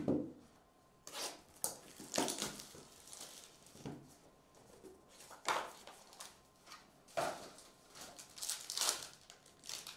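Hands opening a small cardboard trading-card box and handling the foil-wrapped pack inside: a string of separate rustles, scrapes and light crinkles at irregular intervals.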